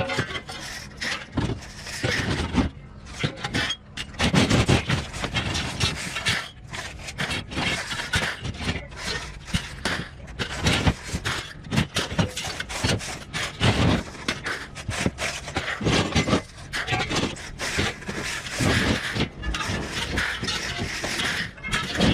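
Scrap steel being thrown onto a scrap pile: a constant, irregular run of metal clanks, crashes and scrapes as pieces are dragged and tossed.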